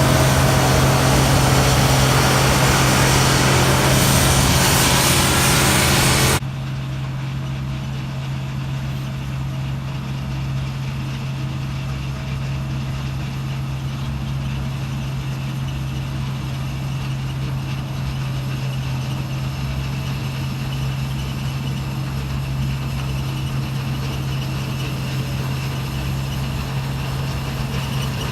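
Heavy harvest machinery engine running steadily. A loud rushing noise over it cuts off abruptly about six seconds in, leaving the engine's steady low hum.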